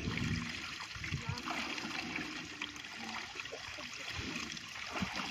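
Water trickling and gurgling steadily, with scattered small ticks and splashes.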